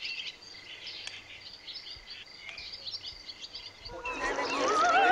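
Small birds chirping and twittering in quick, irregular high notes. About four seconds in, a much louder operatic voice with a wide vibrato begins singing.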